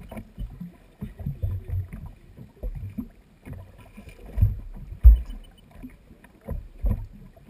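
Small waves slapping against the hull of a jet ski drifting with its engine off, heard as irregular dull thumps, the loudest about halfway through.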